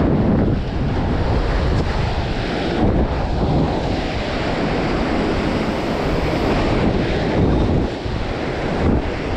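Surf surging and washing over the boulders of a rock jetty, with wind buffeting the microphone.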